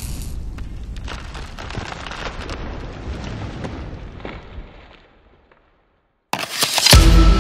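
Logo-intro sound effect: a crackling, sparking burst that fades away over about five seconds, then a moment of silence, then a sudden loud hit as music begins near the end.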